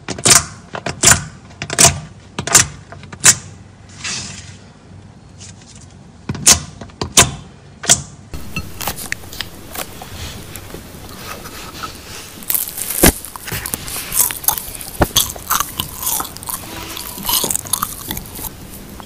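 Fingers pressing into thick slime, air pockets bursting with loud sharp pops, about one every 0.7 s, with a pause in the middle. About eight seconds in, a slime toy burger is squeezed and pulled apart, with a dense crunching crackle.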